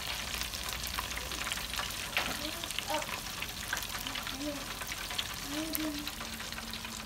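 Battered catfish and tilapia deep-frying in a wire fryer basket of hot oil, with steady bubbling and dense crackling.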